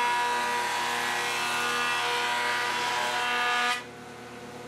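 Jointer running and face-jointing a long wooden board fed over the cutterhead with push blocks, a loud steady machine whine with the cutting noise on top. Near the end the sound drops sharply, leaving a quieter running hum.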